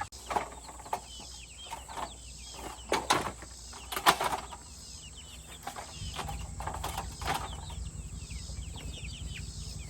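Backyard chickens clucking and calling, with many short high calls throughout and a few louder, sharper ones, the loudest about four seconds in.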